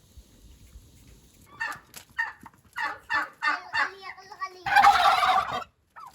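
Domestic turkey gobbling: a quick run of short, rattling notes, then a louder, rougher call lasting about a second near the end.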